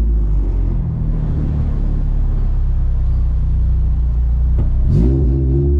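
Car with a Toyota 2ZZ four-cylinder engine running steadily at low revs, a constant low drone.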